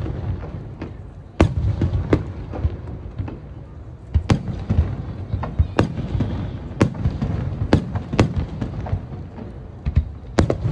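Fireworks bursting in a display: about ten sharp bangs at irregular intervals, over a continuous low rumble.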